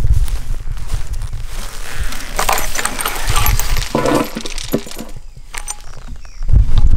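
Dry branches rustling and crackling as a PVC hog feeder pipe is dragged out of a brush pile, with the metal chain and swivel on the pipe clinking.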